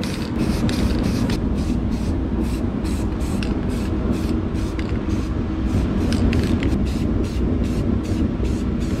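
Paint being sprayed onto the aerator's motor housing: a steady spray with a low, even rumble under it and a fast regular pulsing, about three a second.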